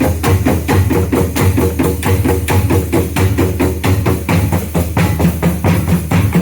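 Live percussion-led music: a fast, steady beat of struck drum strokes over a deep drum tone, with pitched instrument notes held underneath.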